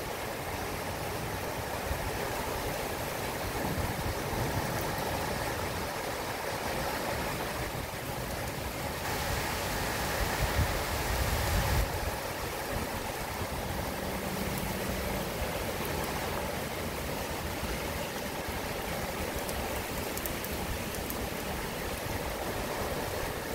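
Steady spring rain falling on the trees and yard, a constant hiss, swelling louder for a couple of seconds about ten seconds in.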